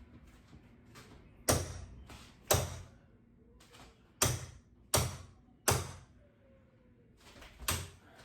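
Hammer striking a doorknob: six hard, unevenly spaced blows, each with a short ringing tail, and a few lighter taps between them.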